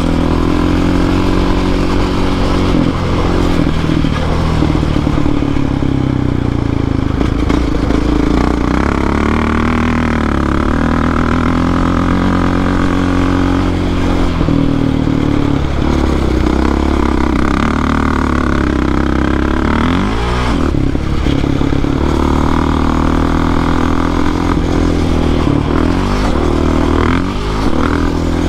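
ATV engine running at a steady throttle. Its pitch dips and climbs back about twenty seconds in, and again near the end.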